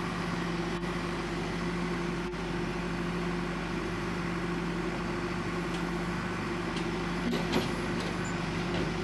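John Deere 310SG backhoe loader's diesel engine running at a steady speed, a constant even hum, with a few faint clicks.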